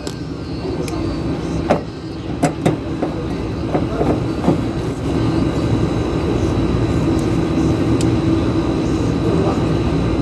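Split-type air-conditioner outdoor unit running with a steady mechanical hum: a hard-starting compressor kept going with the help of a start capacitor. A few sharp clicks or knocks come in the first half, and the hum grows a little louder about halfway through.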